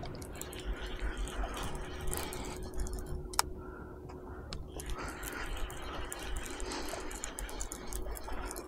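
Irregular light clicking and rattling from a saltwater fishing rod and reel being handled, over a low wind rumble on the microphone.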